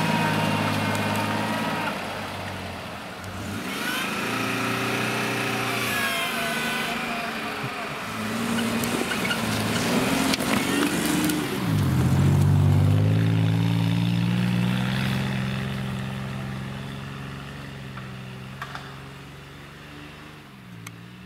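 Toyota 4Runner's engine revving hard while the truck pushes through deep snow, its pitch rising and falling with the throttle. The revs climb sharply about twelve seconds in, then the sound fades as the truck pulls away, with a brief dip in revs near the end.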